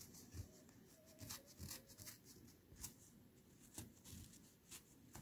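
Faint, irregular rips and rustles of paper-towel stabilizer being torn away by hand from the stitching behind a zipper.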